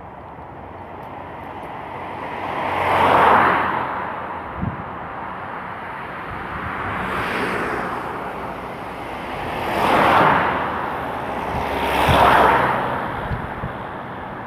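Cars passing one after another on a city street, each one's tyre and engine noise swelling and fading away. There are four passes, the loudest about three, ten and twelve seconds in, and a short low thump comes between the first two.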